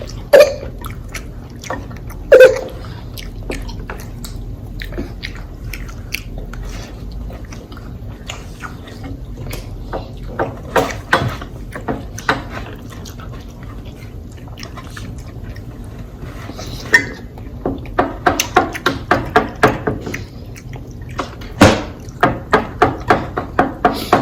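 Close-miked chewing and lip smacking on a fried chicken sandwich dipped in spicy sauce: wet, sticky smacks, with two sharp louder ones near the start and quick runs of about three a second near the end.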